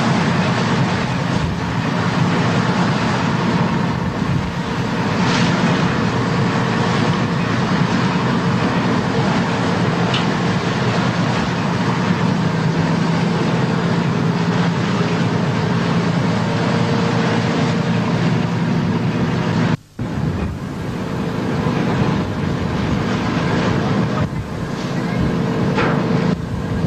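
Steady engine drone of a boat underway at sea, mixed with wind and water noise on the microphone. The sound cuts out for a moment about twenty seconds in, then carries on.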